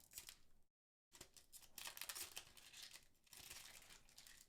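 Booster pack wrapper being torn open and crinkled, faint rustling and tearing, with a brief dead-silent break about a second in.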